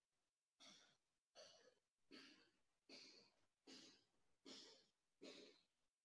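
Near silence broken by faint, regular breathy puffs of noise, about one every three-quarters of a second.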